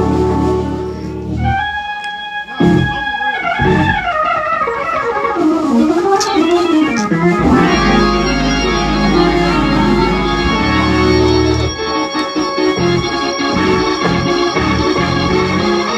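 Two-manual electronic organ played in gospel praise-break style: held chords over deep sustained bass notes, with runs of moving notes between them a few seconds in.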